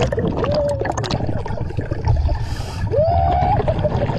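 Underwater sound of a scuba diver: a constant low bubbly rumble, many small clicks and knocks of gear being handled, and a short breath hiss through the regulator about two and a half seconds in. A few short wavering tones come through as well.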